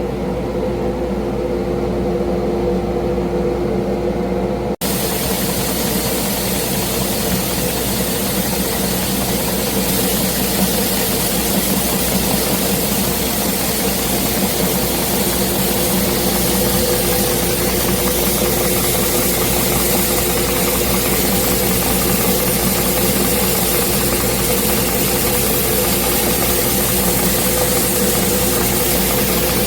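Belt sander running steadily with a constant motor hum. About five seconds in the sound drops out for an instant, then a louder hiss joins the hum as the edge of a round teak-and-holly cutting board is spun against the sanding belt to bring it to a true circle.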